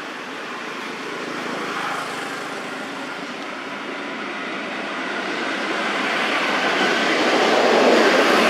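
Steady noise of a passing motor vehicle that grows louder toward the end as it approaches.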